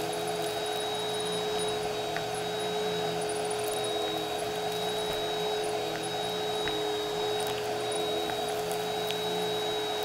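Bissell Helix upright bagless vacuum cleaner running steadily while pushed back and forth over carpet, its steady whine holding a constant pitch while the lower hum swells and fades with each stroke, with a few faint ticks from debris.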